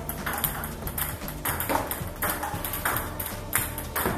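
Table tennis balls knocking sharply on the table and the rubber bats in a hand-fed multi-ball drill, about two knocks a second, over background music.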